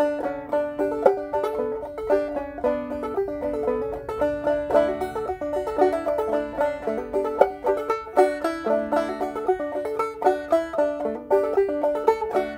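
Solo banjo playing a tune: a steady, unbroken run of short plucked notes.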